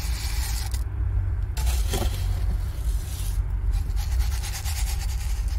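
Fine decomposed-granite grit (masa) pouring and scraping off a scoop onto gravel in a pot, a rattling hiss that stops briefly twice, over a steady low rumble.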